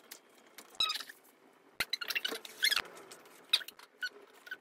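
Light clicks, taps and rustles of cardboard and paper parts being handled and fitted together, with three sharp knocks about a second apart.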